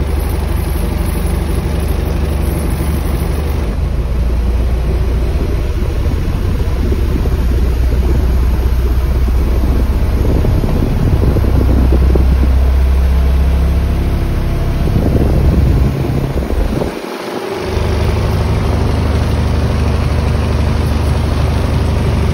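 1977 Toyota Land Cruiser HJ45's inline-six diesel engine idling while warming up after a cold start, heard from inside the cab. The engine note swells somewhat in the middle and drops away briefly about seventeen seconds in before settling back to a steady idle.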